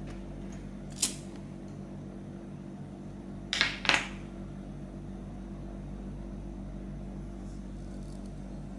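Handheld lighter being struck: a sharp click about a second in, then two louder scratchy strikes close together a few seconds in as the flame catches to light a candle. A steady low hum runs underneath.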